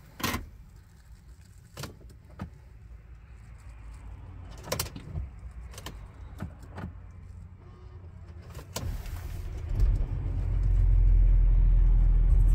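A few scattered clicks and knocks inside the cabin, then about ten seconds in the Audi A6's 3.0 TDI V6 diesel cranks, catches and settles into a steady low idle, heard from the driver's seat on a cold start.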